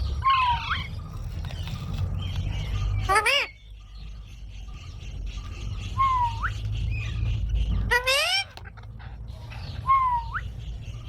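A parrot calling five times, about every two to three seconds: short dipping whistled calls alternate with louder rising squawks. A steady low rumble runs underneath.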